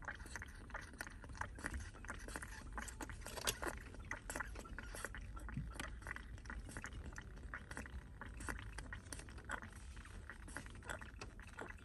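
Baby monkey sucking milk from a feeding bottle: a run of small, irregular wet clicks and smacks from the teat, several a second.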